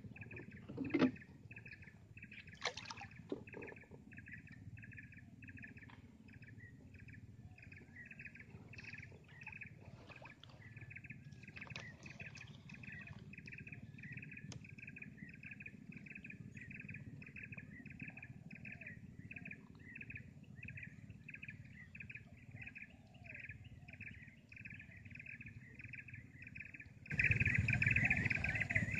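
Insects chirping in a steady, even rhythm of about three pulses a second, over a low rumble. A couple of sharp knocks come in the first three seconds, and everything turns suddenly louder near the end.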